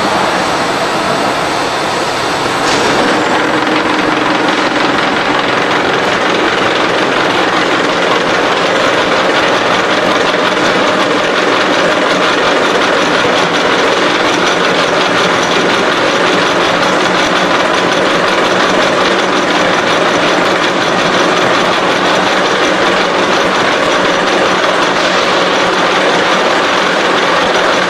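SXA55 CNC H-beam bevelling machine cutting a bevel along the edge of a steel beam: a loud, steady machining noise that steps up a little about three seconds in.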